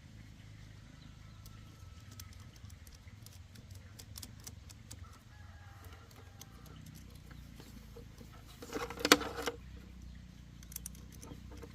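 Scattered light clicks over a steady low hum, with faint thin tones early on, then one loud pitched call lasting about a second, about nine seconds in.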